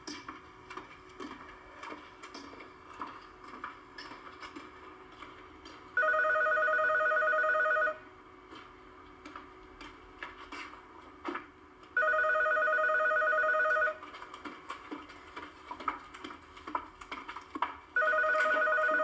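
Telephone ringing: three trilling rings, each about two seconds long with about four seconds of pause between them. Faint clicks and knocks between the rings. It is heard as played back through a screen's speakers.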